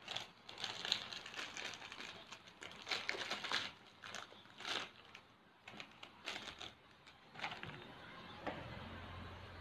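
Soft, irregular clicks and rustling from hands handling thin craft punch-out sheets and a strip of small plastic paint pots. A faint low hum comes in near the end.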